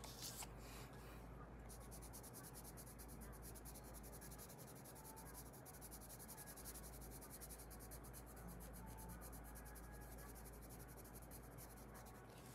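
Faint scratching of a coloured pencil on paper in rapid, even back-and-forth shading strokes, starting about a second and a half in.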